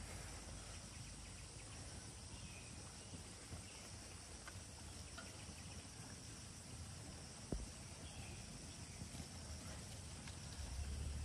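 Faint, steady chorus of insects, with a single sharp click about seven and a half seconds in and a low rumble coming in near the end.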